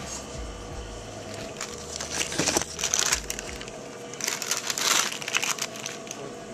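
Rustling and crinkling handling noise, with many small clicks and two louder scraping, crinkling bursts about two and four seconds in.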